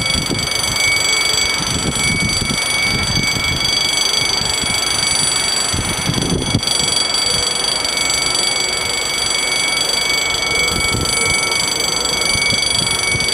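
French level-crossing electronic warning bells giving a steady high ringing as the barriers lower, warning of an approaching train; the ringing stops at the very end. Wind gusts buffet the microphone underneath.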